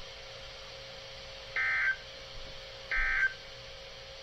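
Two short bursts of the Emergency Alert System's SAME digital data tone, each about a third of a second long and roughly a second apart, over a faint steady hum. These short bursts are the end-of-message code that closes the tornado warning broadcast.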